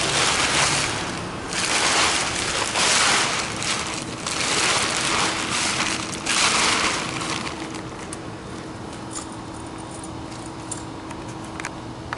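Silver fabric car cover rustling and crinkling as it is pulled back off the car in several sweeps. After about seven seconds it settles into quieter handling with a few small clicks.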